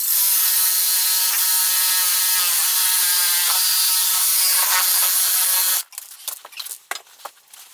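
DeWalt cordless reciprocating saw cutting through an old tub drain pipe, running steadily with its pitch sagging a little under load partway through, then stopping about six seconds in. A few knocks and handling clicks follow.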